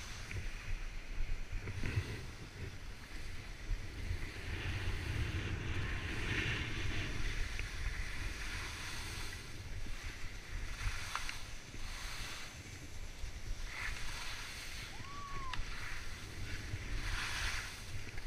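Skis sliding over packed snow, with the edges scraping in swells of hiss at each turn, over wind rushing on the microphone.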